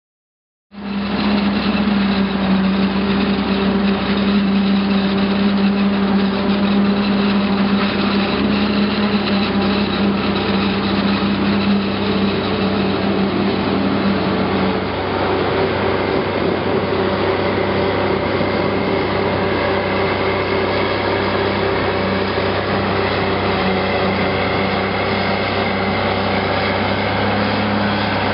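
The heavy diesel machinery of a maize-chopping job, a forage harvester and tracked tractor, running steadily. It is a continuous engine drone with a strong low hum. It starts abruptly about a second in, and the hum shifts a little about halfway through.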